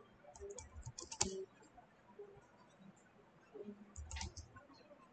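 Faint computer-keyboard typing: a quick run of keystrokes in the first second or so, then another short run about four seconds in.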